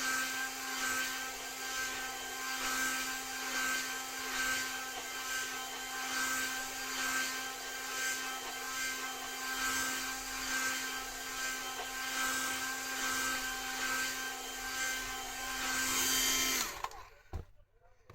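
Hand-held hair dryer blowing steadily with a motor hum, its sound swelling and fading about once a second. It switches off near the end, followed by a couple of light knocks.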